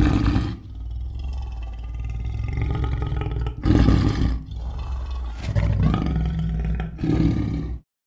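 A big cat roaring several times, once at the start and three more times in the second half, with low growling in between. The sound cuts off abruptly just before the end.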